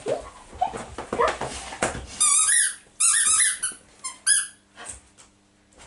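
Rubber squeaky dog toy squeaked rapidly over and over, in several quick runs of short, high squeaks that rise and fall in pitch, starting about two seconds in and stopping after about two and a half seconds. Soft rustling and knocks come before the squeaks.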